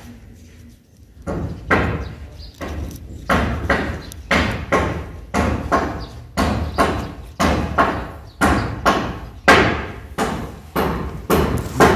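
White adhesive tape pulled off its roll in short rips, about two a second, as it is wound around a ground-wire joint. The rips begin about a second in.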